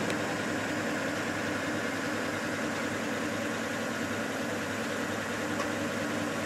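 A vehicle engine idling, a steady unchanging hum.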